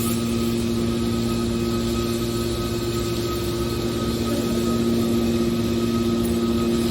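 Hydraulic scrap metal baler running, a steady hum with a constant pitch.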